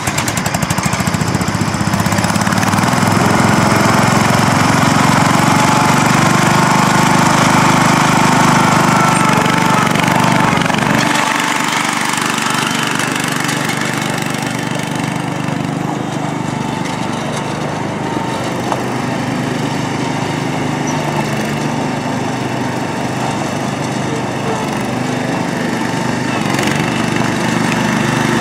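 John Deere 140 riding lawn mower's single-cylinder engine running steadily while the tractor is driven. The sound drops a little about a third of the way in as it moves off, then grows louder again near the end as it comes back.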